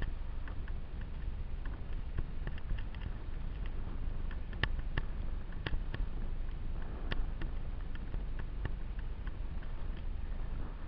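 Movement along a dirt forest trail, heard through a moving body-mounted camera: a steady low rumble with scattered sharp clicks and crunches of stones underfoot or under wheel, several louder ones near the middle.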